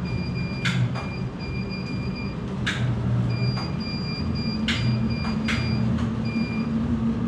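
Motorised treadmill running at speed under a person walking briskly uphill: a steady low motor hum with a faint high whine that comes and goes, and a few sharp scuffs of shoes on the belt.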